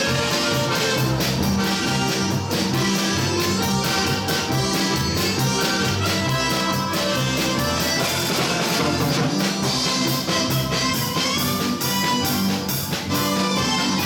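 Live polka band music led by accordions, with a steady beat and bass line throughout.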